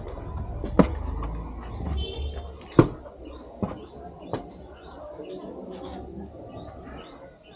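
Footsteps and scrambling over loose rubble while climbing through a collapsed section of a crumbling old building: irregular sharp knocks and scuffs, with a low rumble in the first three seconds.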